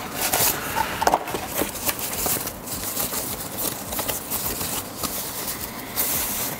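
Handling and unwrapping packaging: a small cardboard box being opened and the thin white protective wrap around the controller being pulled open, a run of quick crackles, scrapes and rustles, with a louder rustle near the end.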